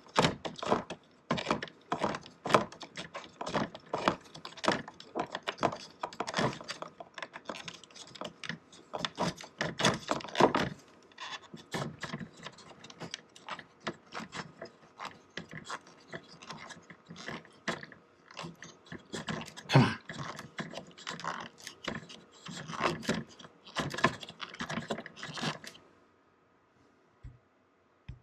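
Rapid, irregular clicking and scraping from hands working the battery cover and its Phillips screw on a Purell hand sanitizer dispenser without a screwdriver. The clicking stops near the end.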